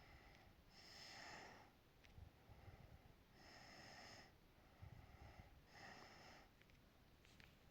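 Faint breathing close to the microphone, a slow breath in or out every second or two, with a few soft clicks between breaths.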